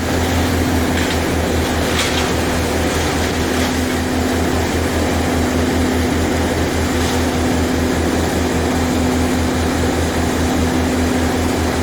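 A heavy engine running steadily: an even low throb under a constant hum, unchanging throughout.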